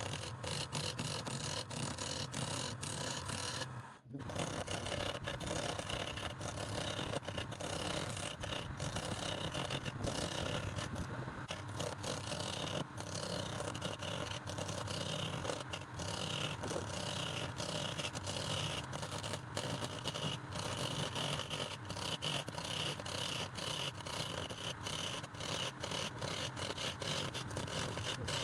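Power tool working wood, a steady whir with scraping and many sharp clicks, briefly cut off about four seconds in.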